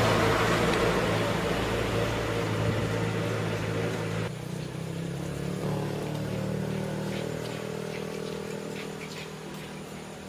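Motorcycle engine running steadily and fading away; its noisier part drops off suddenly about four seconds in, leaving a quieter hum that keeps fading.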